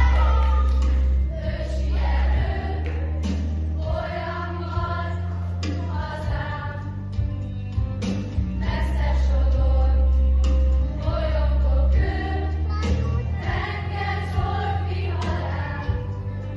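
Children's choir singing a Hungarian pop song in unison over instrumental accompaniment with a heavy, steady bass.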